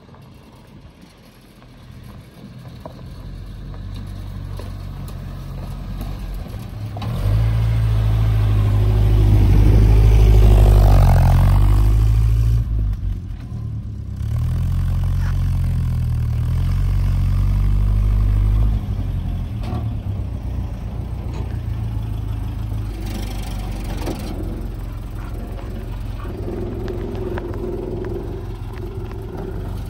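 Land Rover Series 3 engine growing louder as the vehicle drives up, running loud close by with a peak about a third of the way in, then dropping back to a steadier, quieter running, like an idle, for the last third.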